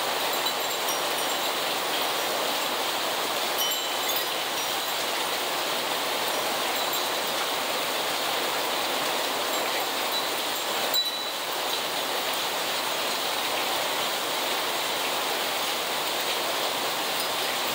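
Heavy rain falling steadily on a yard and street, a constant even hiss, with a few brief faint high tinkling notes.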